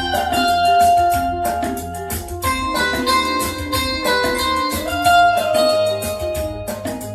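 Instrumental passage of a Tamil film song, with guitar over a steady beat and a few sliding melody notes, played back through a pair of Bowers & Wilkins 805 bookshelf speakers.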